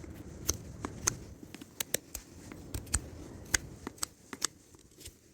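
Hoof knife paring excess horn and sole from a miniature horse's hoof: irregular crisp clicks and scrapes, a few each second.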